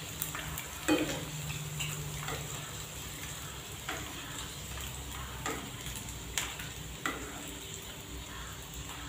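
Calamari rings frying in hot oil in a frying pan, a steady sizzle, while metal tongs click and scrape against the pan and a wire strainer as the rings are lifted out. The sharpest click comes about a second in, with several more spread through.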